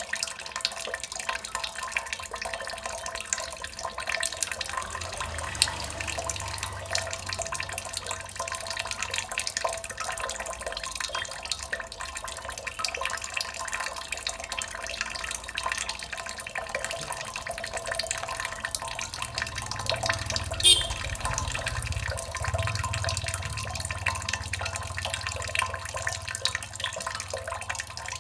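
Water dripping continuously, many small drops falling close together, with one sharper drop about twenty seconds in.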